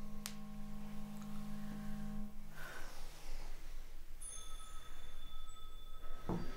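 Sustained tonal sound design. A low steady hum with a few higher held tones stops about two seconds in. After a brief rush of noise, a set of high steady ringing tones begins about four seconds in, and a short knock comes near the end.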